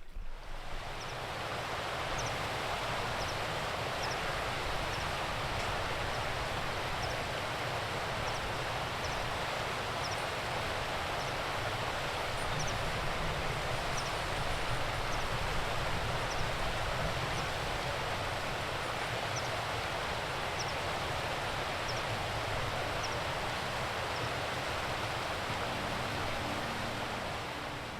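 Steady rush of a fast-flowing mountain stream, with faint high chirps recurring about once a second.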